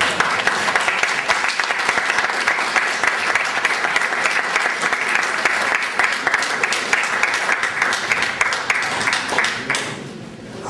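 Audience applauding, starting all at once and dying away after about ten seconds.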